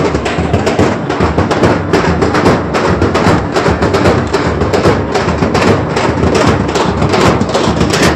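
Rapid, loud drumming: a dense, unbroken run of sharp beats, several a second.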